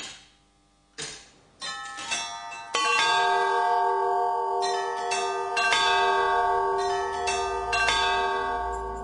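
A tower clock's mechanism ticks about once a second, then its bells start striking about two seconds in: several strikes in a row, each ringing on and overlapping the next, fading out near the end.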